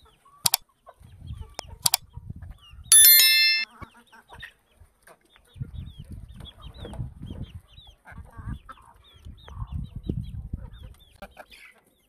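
Backyard chickens clucking, with many short high chirps. Early on, a like-and-subscribe overlay gives two sharp mouse clicks and then a loud bell ding about three seconds in, the loudest sound.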